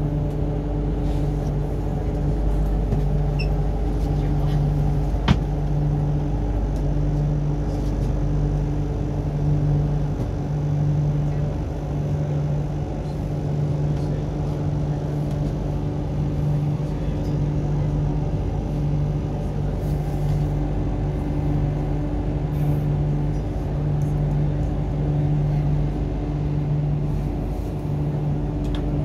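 Cabin noise of an MTR Island Line Q-Train running between stations: a steady low rumble of wheels on track, with a low hum that swells and fades every couple of seconds and one sharp click about five seconds in.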